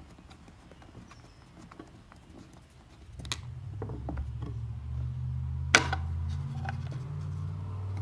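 Light wooden clicks and taps as a loosened wooden panel is worked free and lifted off a wooden box, with a sharper click about three seconds in and a louder knock near six seconds. A low steady hum sets in about three seconds in and continues.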